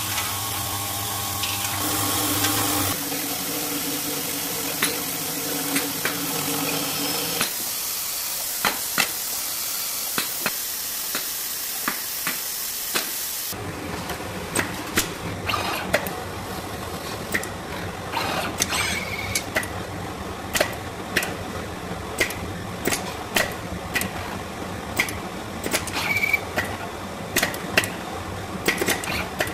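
Automated LED assembly and soldering machine running: a steady hiss with a low hum for the first half, which cuts off abruptly. Then an irregular run of sharp mechanical clicks and knocks from the machine's moving stations.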